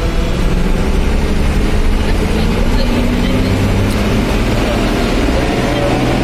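Steady engine drone and road noise of a moving vehicle, heard from on board.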